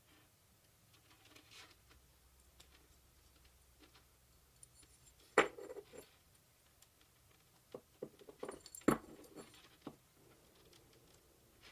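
Small metal parts being handled: a thin steel wire cable and its metal ferrule and aluminium bracket clicking and ticking, with two sharper clicks about five and nine seconds in.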